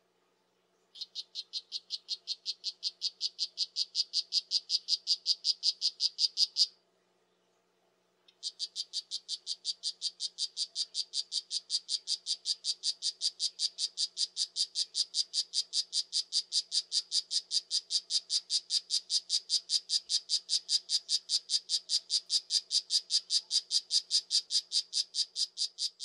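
Strawberry poison dart frog (Oophaga pumilio) giving its advertisement call: long trains of rapid, high chirps at about five a second. The first train grows louder and stops about seven seconds in, and after a short pause a second train starts and runs on.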